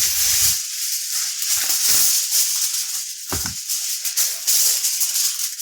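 Aluminium foil being crinkled and folded by hand, a dense continuous crackle, with a couple of dull handling thumps.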